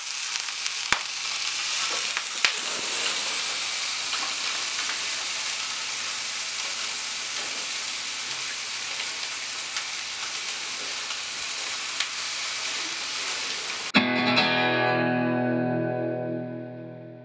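A whole fish frying in hot oil in a pan: a steady sizzle with a few sharp pops. About fourteen seconds in, the sizzle gives way to a short music sting that fades out.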